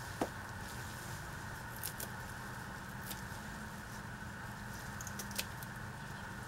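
Scissors snipping freshly dug ginger rhizomes and stalks: a few separate sharp clicks a second or more apart, over a steady low background hum.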